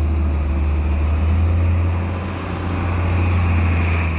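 Heavy diesel engine running steadily with a deep, continuous hum; a higher-pitched noise swells about three seconds in.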